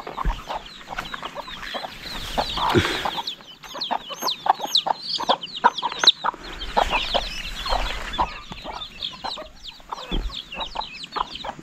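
Young chicks peeping in many quick, high-pitched, down-sliding notes, over the shorter, lower clucks of hens.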